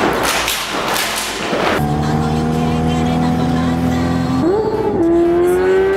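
Motorcycle engines running steadily, then revving up about halfway through with the pitch climbing slowly. The first two seconds hold a noisy jumble of music and crowd before the engines come in.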